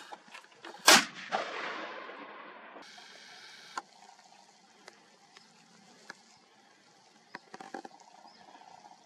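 A single rifle shot from a scoped hunting rifle about a second in, very loud, with an echo that trails off over a couple of seconds.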